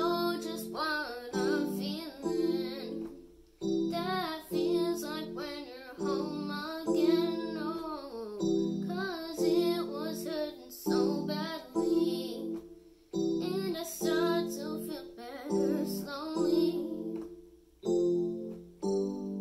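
A boy singing a song while accompanying himself with chords on an electronic keyboard set to a piano sound. The voice stops near the end and the keyboard plays on alone.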